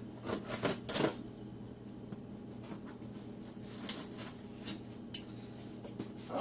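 Cardboard shipping box being handled and opened by hand: a quick cluster of clicks and rustles about half a second in, then a few scattered taps and scrapes.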